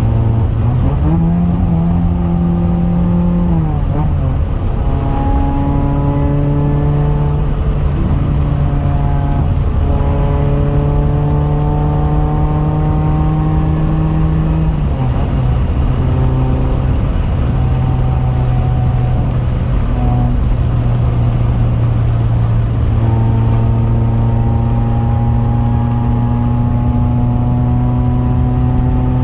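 Honda F23A inline-four engine running, its revs stepping up and down: held steady for several seconds at a time, dropping about 4 and 15 seconds in, then rising again and climbing slowly near the end.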